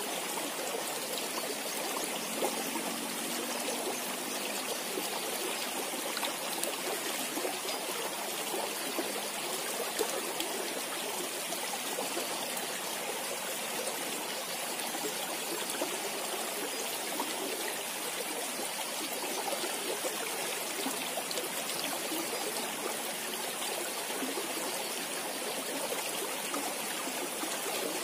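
Small, shallow creek flowing steadily over rocks: a constant, even wash of running water.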